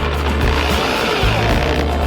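Background music with a steady bass line that moves between held low notes.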